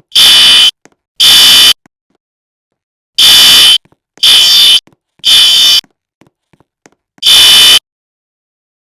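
Fire alarm horn giving loud, harsh buzzing blasts of about half a second each, in groups of three spaced about a second apart with a longer pause between groups: the temporal-three evacuation signal. Two blasts, then a full group of three, then one more blast near the end.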